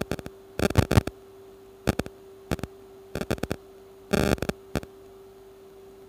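A steady electrical hum from the microwave test bench equipment, with irregular clicks and short knocks as the slotted line's probe carriage is moved slowly by hand.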